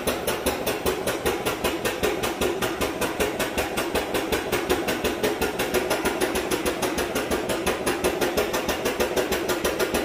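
A machine running with a rapid, even knocking pulse, about eight beats a second.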